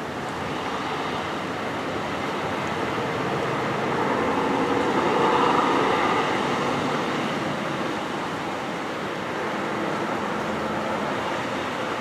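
A car passing on the road. Its tyre noise swells to a peak about five or six seconds in, then fades.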